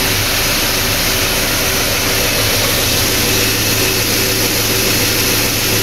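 Car engine idling with the air-conditioning compressor engaged during an AC recharge: a steady rushing noise over a low hum, unchanging throughout.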